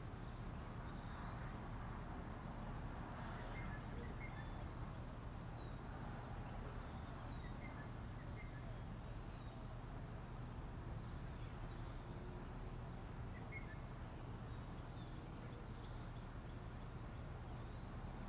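Outdoor ambience: a steady low background noise with faint, short bird chirps scattered through it, most of them in the first half.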